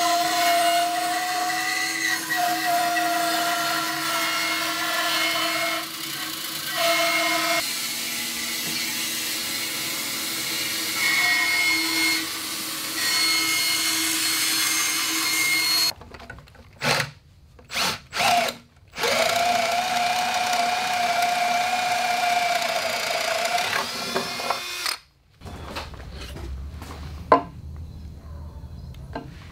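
Bandsaw cutting through a thick timber, a steady machine sound whose tone shifts as the wood is fed into the blade. It breaks off sharply about halfway, with a few short bursts, then runs again for several seconds before giving way to quieter shop sound with a single sharp knock near the end.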